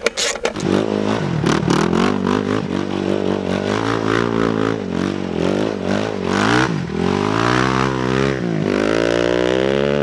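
Honda TRX400EX quad's single-cylinder four-stroke engine revving up and down again and again under bursts of throttle as the ATV slides on loose dirt, with tyres scrabbling in the gravel. A few short clicks come just before the engine sound starts.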